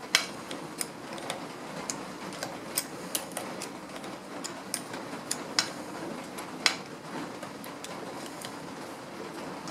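Irregular light metallic clicks and taps of a small wrench on the jointer cutterhead's blade bolts as the new knife is snugged down, about a dozen in all, over a steady faint background hum.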